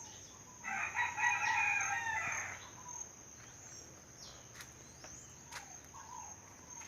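A rooster crowing once, a call of about two seconds about half a second in, over a steady high chirring of crickets.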